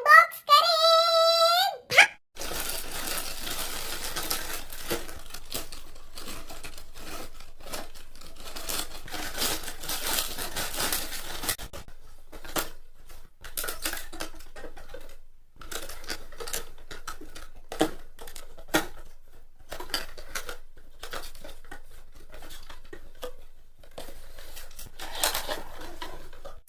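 Packaging being torn and crinkled open by hand, a steady rustle broken by irregular sharp crackles and clicks.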